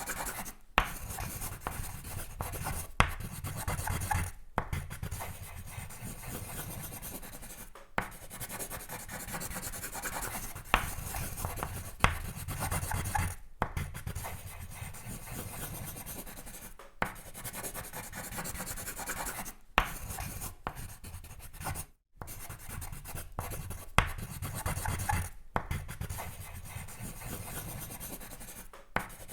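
Sketching on paper: continuous scratchy drawing strokes, broken by short pauses and by a sharp tap every few seconds.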